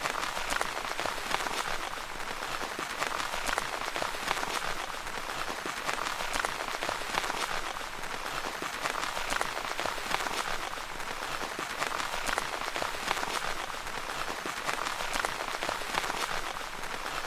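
Rain pattering steadily on a tent fabric: a dense, even hiss of many small drop impacts.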